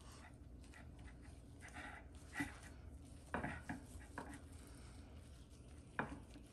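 Faint handling sounds as oil is poured onto raw mahi-mahi fillets and spread with a gloved hand: a few soft, short knocks and rubs, over a low steady room hum.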